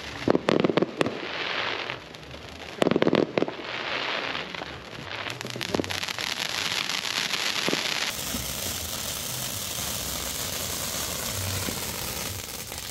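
Fireworks going off: two quick rattling clusters of firecracker bangs in the first few seconds, then a firework fountain hissing and crackling steadily, a little stronger about eight seconds in.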